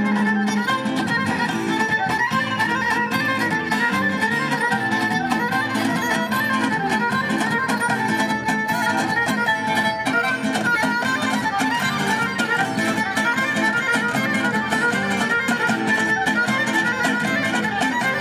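Traditional folk music led by a bowed string instrument playing a busy, unbroken melody.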